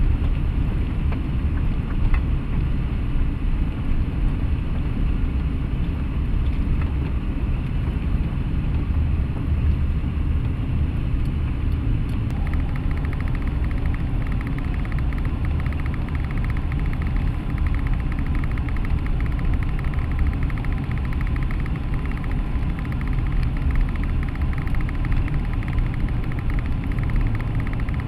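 Inside a moving car: steady low engine and road rumble, with artificial rain from the rigged car spattering on the windshield and roof. About twelve seconds in, a fine, rapid pattering joins.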